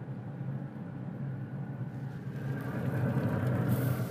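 A steady low machine hum, with a brief hiss near the end.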